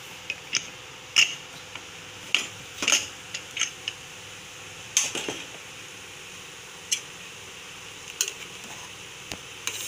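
Scattered metal clinks and knocks from an aluminium pressure cooker: the whistle weight lifted off and the lid worked open and taken off, then a ladle knocking and scraping in the pot while stirring the green gram kuruma.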